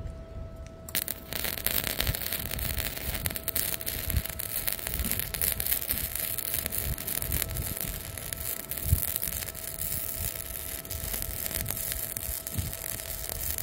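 Flux-core MIG welding arc from an Arccaptain MIG 200, crackling and sputtering steadily as a long bead is laid; it strikes about a second in. Wind rumbles on the microphone underneath.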